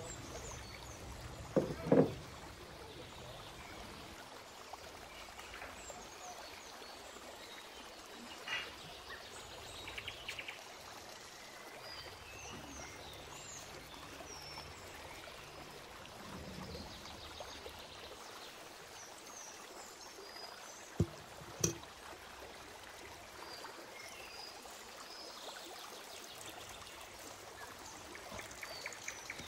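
Outdoor ambience: a steady rushing noise like running water, with small birds chirping throughout. A few sharp knocks come about two seconds in and twice about twenty-one seconds in.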